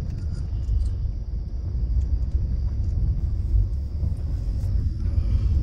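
Steady low rumble of a car driving slowly on an unpaved road, tyre and engine noise heard from inside the cabin.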